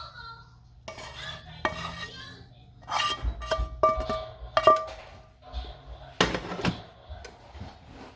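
Metal utensil clinking and scraping against cookware while cooked mushrooms are spooned onto a pizza. There are several ringing clinks in the middle and a couple of heavier knocks later.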